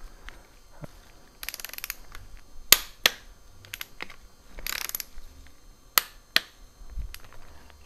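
Ratchet wrench clicking as it turns the mounting bolts of a motorcycle engine's cam chain tensioner: two short runs of rapid clicks, with a few single sharp metal clicks and taps between and after.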